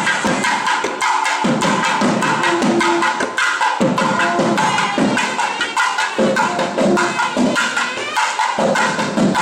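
Music with fast, dense drumming: a rapid run of sharp drum strokes over a few held melodic tones.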